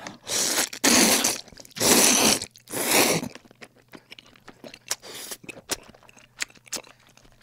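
Thick jjamppong noodles in cream sauce slurped into the mouth right at the microphone: four long, loud slurps in the first three seconds or so, then quieter chewing with small wet clicks.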